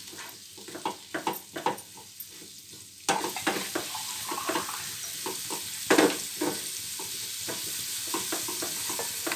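Star fruit pieces frying in oil in a nonstick pan, sizzling, while a spatula stirs and scrapes them in short repeated strokes. About three seconds in the sizzle becomes louder and steadier.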